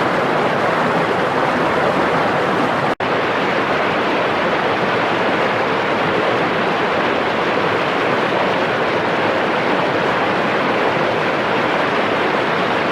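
Waterfall rushing steadily, with a momentary dropout about three seconds in.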